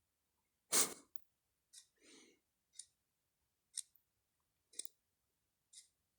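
A sleeping cat snoring softly: one quiet breathy snore near two seconds in. Faint sharp clicks come about once a second, and a louder short noise sounds about a second in.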